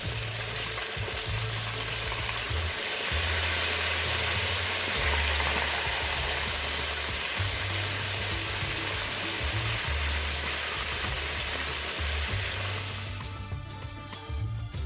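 Battered chicken pieces deep-frying in hot canola oil in a cast-iron skillet, a steady, loud sizzle, with low bass notes of background music underneath. Near the end the sizzle cuts out and the music carries on alone.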